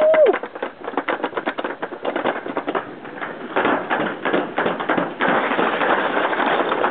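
Toboggan sled running fast down a metal chute: a quick, uneven clatter of ticks as it rolls along the track, giving way to a steady rushing noise about five seconds in.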